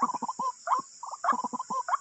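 White-breasted waterhen calling: a rapid run of short, hooked notes, several a second, with the calls overlapping.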